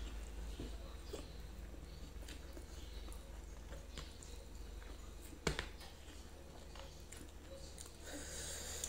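Quiet eating-by-hand sounds: fingers tearing grilled chicken and pressing rice in a plastic meal box, with faint small ticks and one sharp click about halfway through, over a steady low hum.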